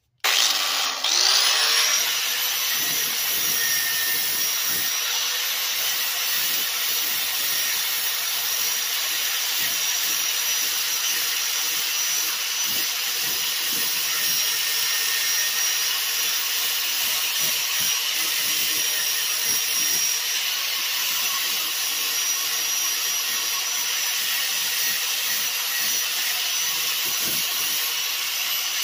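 Electric angle grinder with an 80-grit flap disc switched on, spinning up over about a second, then running at a steady whine while the disc lightly sands down fiberglass body filler on a steel car door.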